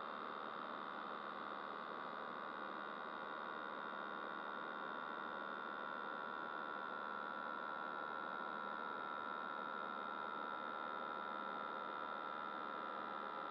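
A steady high-pitched electrical hum with a layer of hiss, unchanging throughout.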